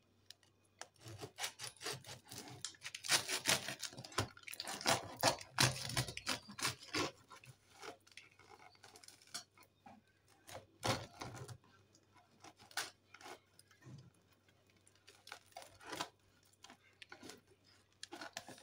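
Serrated bread knife sawing through the crust of a whole-grain sourdough loaf topped with sunflower seeds: quick, crackling, rasping strokes, densest in the first several seconds, then fewer separate crackles and knocks.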